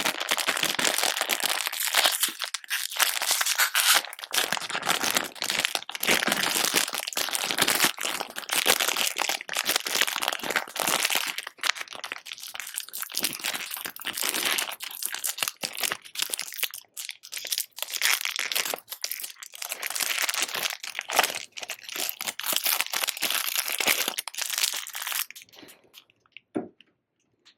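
Wrappers on fizzy surprise eggs crinkling and crunching as they are unwrapped by hand, a dense run of crackles and small tears that dies away near the end.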